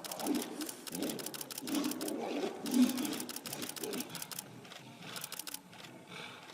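Camera shutters firing in rapid bursts of clicks, over the growls of two fighting tigers.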